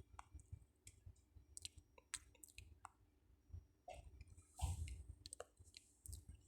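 Faint, scattered clicks and taps from a smartphone being handled and tapped. There is a brief rush of noise about four and a half seconds in.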